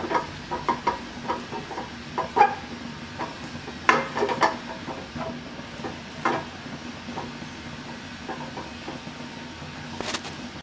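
Wooden spatula stirring and scraping thick, cooked rice-flour dough around a steel karai, with irregular knocks and scrapes against the pan. A steady low hum runs underneath.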